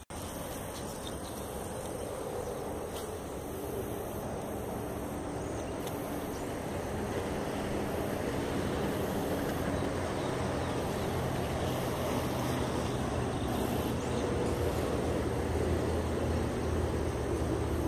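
A steady engine-like hum under a noisy rush, slowly growing louder.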